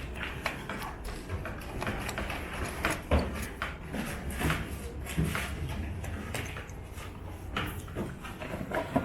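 Irregular small clicks and knocks of objects being handled, over a low steady hum.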